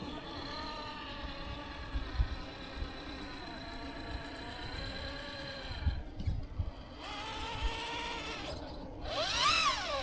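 RC rock crawler's electric motor and geared drivetrain whining, the pitch rising and falling with the throttle and one sharp rev up and down near the end. A few short knocks from the crawler bumping over rock.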